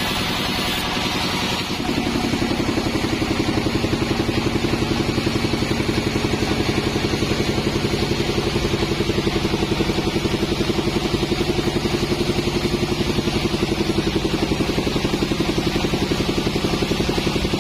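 Sawmill machinery running steadily with a fast, even pulse, like an engine driving the bandsaw. About two seconds in, the hiss drops away and the running gets a little louder and deeper.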